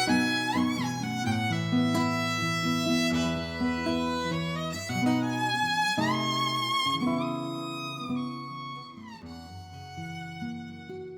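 Background music with violin and plucked strings, fading out near the end.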